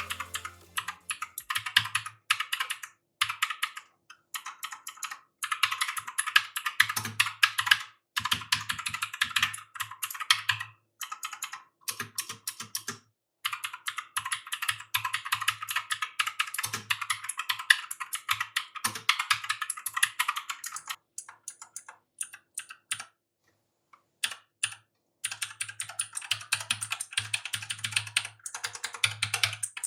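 Clicky blue-switch mechanical gaming keyboard being typed on fast, in bursts of rapid loud clicks with short pauses, and a longer pause a little past the middle.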